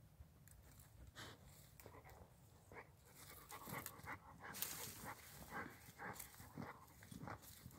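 A dog digging in dry soil with its head down the hole, snuffling and breathing hard: quiet, short, irregular scuffs and breaths that come more often after about three and a half seconds.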